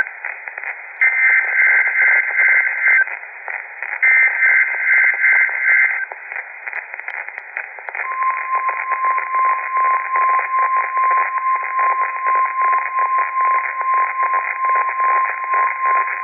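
NOAA Weather Radio weekly test tones received with heavy static hiss. First come the last two of the three EAS/SAME digital header bursts, each a harsh two-tone warble about two seconds long. After a short gap of static, the steady 1050 Hz weather radio warning alarm tone starts about eight seconds in and holds.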